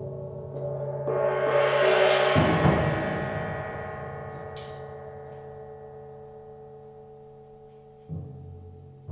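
Solo timpani and suspended cymbal: a metallic swell builds for about a second and a half and peaks with a deep timpani stroke, then both ring on and fade slowly over several seconds. A fresh timpani stroke sounds about a second before the end.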